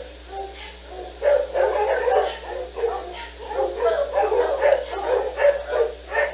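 Dog barking and yipping in rapid, closely packed bursts from about a second in until near the end.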